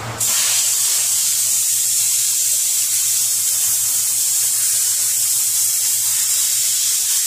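Compressed-air blow gun on a shop air hose hissing steadily as it blows dust out of a masked car's body seams before painting.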